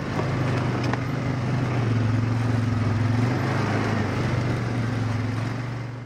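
ATV (four-wheeler) engine running at a steady speed while being ridden, a low steady drone with a rushing noise over it.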